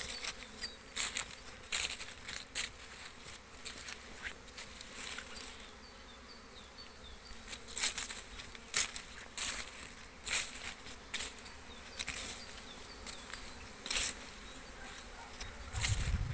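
Honey bees buzzing around hive entrances on their early-spring cleansing flights. Irregular crunching steps on dry leaves and grass sound over the buzz, with a low rumble near the end.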